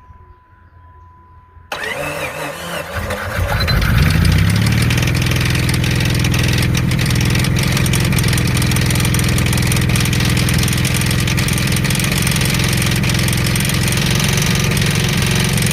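Jeep engine cranked by the starter, catching after about two seconds of cranking and settling into a steady idle with a knock running through it, the sign of a worn connecting-rod bearing (rod knock).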